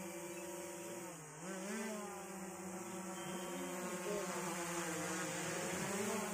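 Small quadcopter drone hovering overhead, its propellers giving a steady buzzing whine. The pitch dips and rises a little over a second in and wavers again near the end as the drone manoeuvres.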